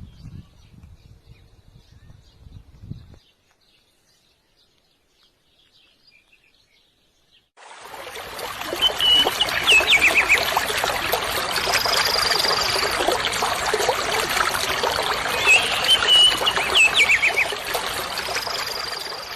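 Faint bird chirps, then about seven and a half seconds in a steady rush of flowing water cuts in suddenly. Over the water a bird twice gives a short series of whistled notes ending in a quick falling trill, and twice a high, held whistle.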